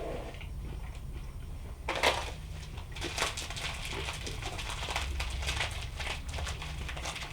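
Close-up crunchy chewing of chocolate granola, with a loud crunch about two seconds in followed by a dense run of crackling crunches.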